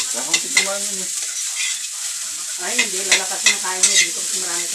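Metal spatula scraping and tapping against a wok as rice is stir-fried, in sharp irregular strokes over a steady sizzle from the hot pan.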